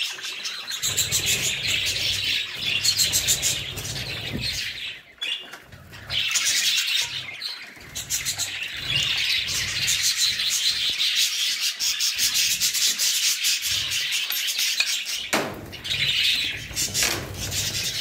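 Continuous scratchy rubbing noise mixed with the chirping chatter of pet budgerigars, with a short lull about five seconds in.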